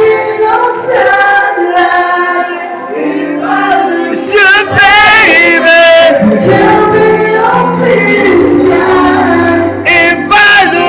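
Singing over backing music, with a wavering vibrato on a held high note about halfway through.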